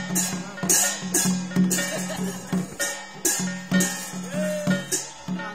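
Percussion music from a Dao cấp sắc ritual: regular ringing strikes about two a second over a steady drum beat, with a voice chanting briefly near the end.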